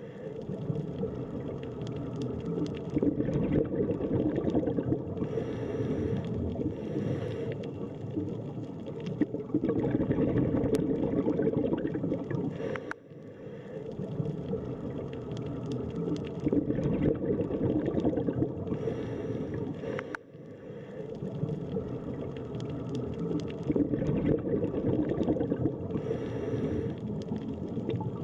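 Scuba diver breathing underwater through a regulator: long stretches of bubbling, gurgling exhaled air alternating with hissing inhales, with short pauses between breaths.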